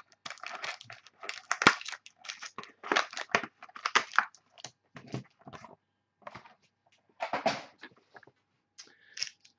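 Plastic wrap and foil card packs crinkling and rustling in irregular bursts as a box of football trading cards is unwrapped and its packs are pulled out by hand.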